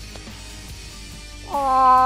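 A hunter's cow moose call made by voice through cupped hands. It is one long call held at a steady pitch and begins about a second and a half in.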